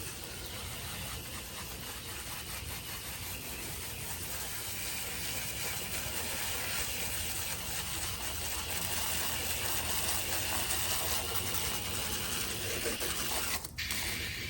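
Steady hissing spray of water rinsing a clogged air-conditioner condenser coil, with a brief break near the end.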